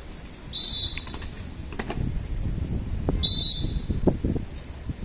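Two short, shrill blasts of a drill whistle about two and a half seconds apart, cueing a squad of commandos through their drill, with a few scattered knocks in between.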